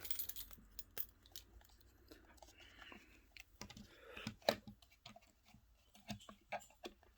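Faint, scattered clicks and taps from a scale replica helmet being handled, with a soft rustle now and then; the loudest tap comes about four and a half seconds in.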